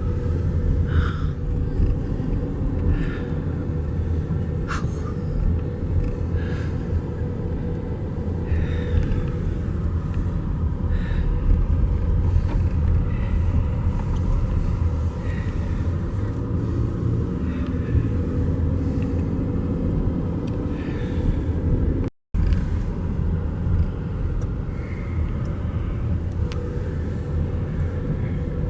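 Vehicle running with a steady low road rumble, heard from inside, with scattered short knocks and rattles from bumps along the way. The sound drops out for a split second about two-thirds of the way through.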